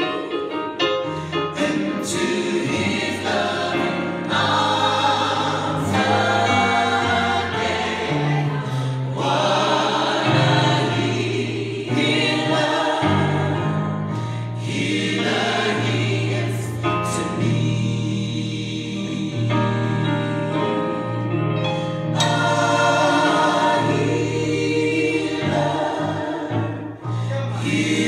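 Gospel choir of mixed male and female voices singing in harmony through handheld microphones, over a low sustained bass line.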